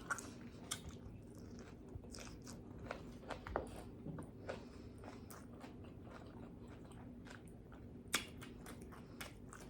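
A person chewing and biting pizza close to the microphone, with soft, wet mouth smacks and clicks scattered throughout and one sharper smack about eight seconds in.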